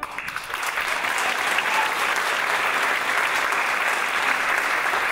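Theatre audience applauding at the end of an opera aria, a dense, steady clapping.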